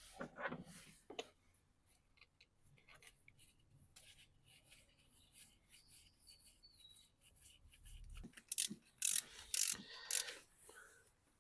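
Fuel injectors being seated by hand into a small petrol engine. Faint rubbing and handling of the parts, then, about eight seconds in, a handful of sharp clicks and knocks as they are pressed home.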